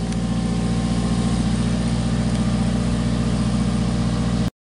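Small engine of a self-propelled aerial work platform running steadily with a fast, even low pulse. It cuts off suddenly near the end.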